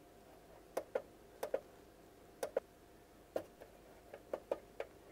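Buttons on the grinder motor's inverter (variable-frequency drive) keypad being pressed one after another while a parameter is set: about a dozen short clicks at uneven spacing, several in quick pairs.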